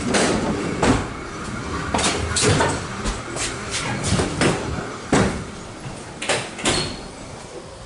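Doors between the carriages of a suburban electric train opening and banging shut as someone walks through the gangway. Irregular knocks and clatters come every half second to a second over the train's steady rumble.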